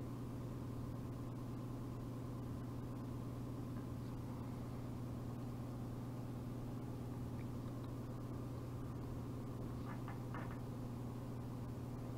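Steady low electrical hum with fainter higher tones over a noise floor: room tone. A few faint short sounds come about ten seconds in.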